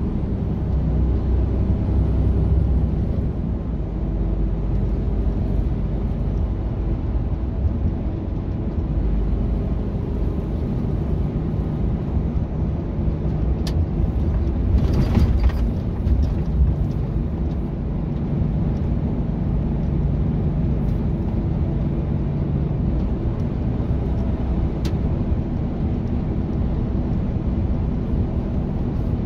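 Steady low drone of a Mercedes-Benz Actros semi-truck's engine and tyres at motorway speed, heard from inside the cab. About halfway through there is a brief louder rush, and there are a couple of faint clicks.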